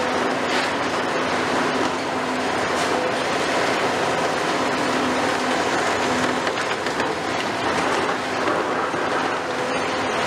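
Cat 390F demolition excavator working: its Cat C18 diesel engine and hydraulics running under load while the demolition shear crushes and tears concrete, with steady crackling and crunching of breaking concrete and falling debris.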